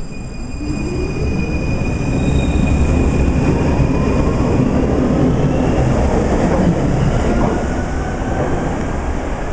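Munich U-Bahn train pulling out of an underground station and accelerating past, with a rising whine from its electric traction motors over the noise of its wheels on the rails.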